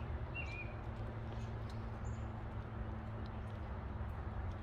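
Steady low background rumble with a few short, faint bird chirps near the start and again about two seconds in.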